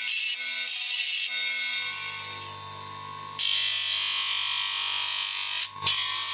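Steel plate being worked with workshop tools to make a flange: a harsh scraping, rasping noise. About two seconds in, a steady motor hum comes in and runs on under the loud harsh noise.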